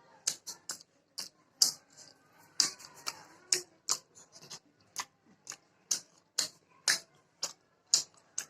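Close-miked chewing of chapati with chicken gravy: a steady, slightly irregular string of sharp wet mouth clicks and lip smacks, about two a second.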